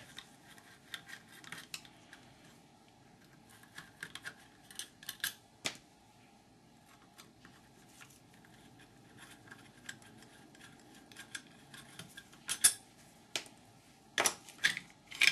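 Scattered small metallic clicks and ticks of a screwdriver and hands working the screws of the metal module cover on a Bosch HEI distributor, with a few sharper clicks near the end as the cover comes free.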